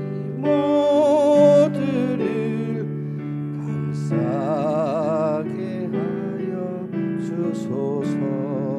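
A solo voice singing a hymn with piano accompaniment, holding long notes with vibrato over sustained piano chords.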